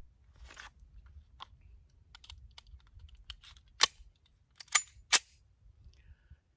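Springfield 1911 A1 pistol being handled as it is readied to fire: light rattles and small clicks, then three sharp metallic clicks in the second half.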